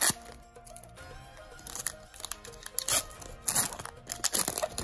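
Foil Pokémon trading card booster pack wrapper being torn open and crinkled, in several short crackly bursts, over background music.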